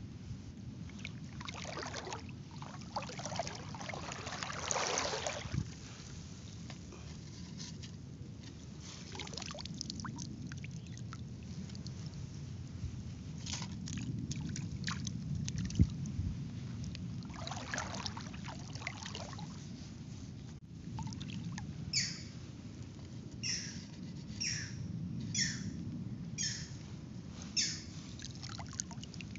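Water sloshing and splashing in several bouts. About two thirds of the way in comes a run of about eight short, falling animal calls, roughly one a second.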